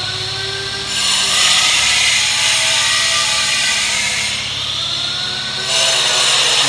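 Handheld electric power tool running on a wall, its motor whine climbing in pitch as it spins up. It eases off about four seconds in and speeds up again near the end, echoing in a bare room.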